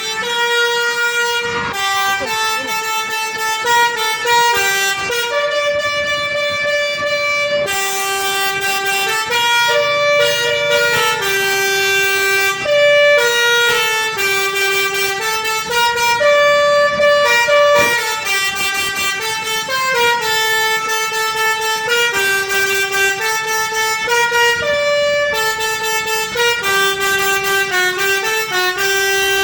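Wijaya Trans bus's telolet horn, an Indonesian multi-trumpet musical air horn, playing a loud tune of quickly changing steady notes, sometimes two sounding together, with a few short breaks between phrases.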